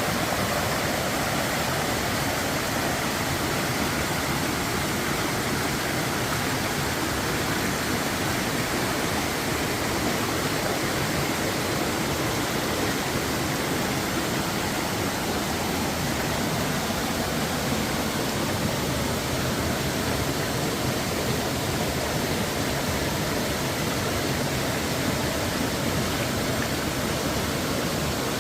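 Water flowing, a steady even rush with no breaks or changes.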